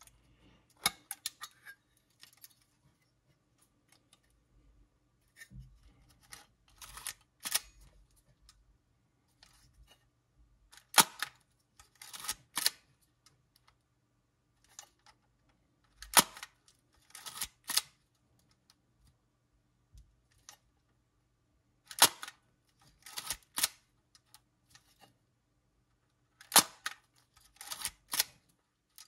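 Kiev 15 TEE SLR camera being worked over and over: each cycle is a single sharp shutter click followed about a second later by a quick run of clicks from cocking the shutter. The cycles repeat roughly every five seconds.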